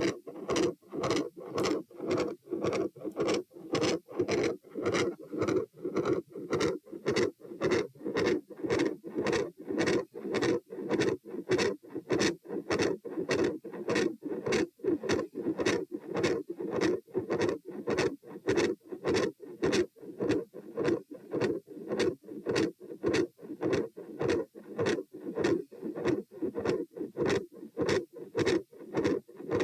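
Human heartbeat heard through a stethoscope at the pulmonic area, beating in a steady, even rhythm. The second heart sound is loud, and a rough murmur runs with the beats, which the recordist calls machinery-like and intermittent.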